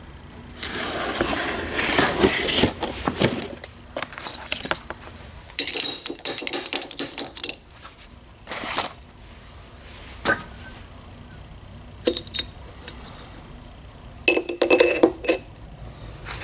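Small metal parts clinking and rattling as they are handled, in several separate bursts with short pauses between.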